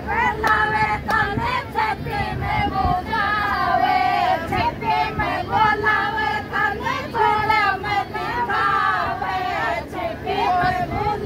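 A group of women singing together a Shekhawati sithna, the Rajasthani teasing song sung at weddings.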